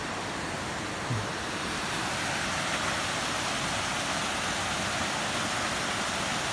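A waterfall rushing: steady, even noise of falling water, a little louder from about two seconds in, with a short low bump about a second in.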